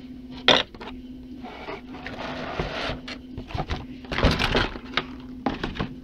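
Handling noises from toy packaging and the tabletop: a sharp knock about half a second in, then bursts of rustling and clattering around two to three and four to five seconds in.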